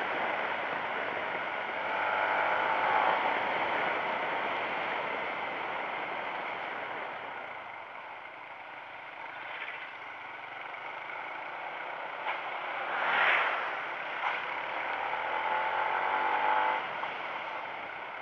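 Motorcycle riding at night: wind rushing over the on-bike microphone, with the engine's pitch rising and falling as the rider changes speed. About 13 seconds in, a louder whoosh as an oncoming vehicle passes.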